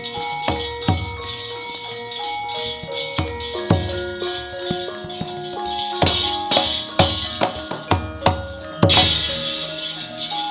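Javanese gamelan playing, with held metallophone tones, low kendang drum strokes and a pulsing high metallic jangle from struck metal plates (kecrek). A cluster of sharp strikes comes around six to seven seconds in, and a loud jangling burst comes about nine seconds in.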